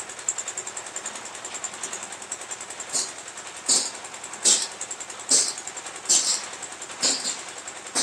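The small diesel engine of a concrete lift mixer is running with a fast, even ticking clatter. From about three seconds in, a harsh burst comes roughly once a second.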